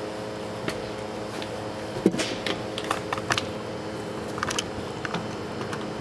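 Boots and hands knocking and clanking on a fire engine's metal steps and diamond-plate body as a man climbs up onto the back: a string of light, irregular knocks. Under them runs the steady hum of the engine's pump system.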